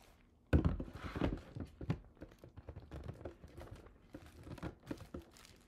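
Handling noise of the plastic parts of a Spellbinders Glimmer hot foil machine: a sharp knock about half a second in, then irregular clicks, taps and rustling of plastic wrap as the platform is fitted onto its heating base.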